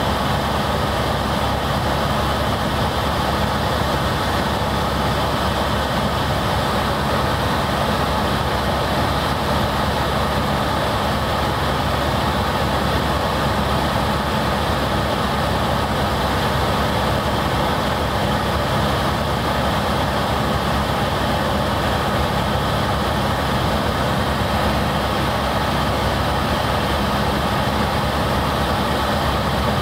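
Helicopter in flight, heard from inside the cabin: the steady drone of the turbine engine and rotor, with a low hum of several steady tones under a wide hiss.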